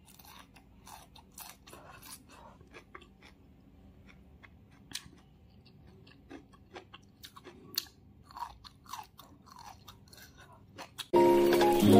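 Close-up chewing and crunching of stir-fried green beans, a scatter of soft, short wet clicks. Background music comes in loudly near the end.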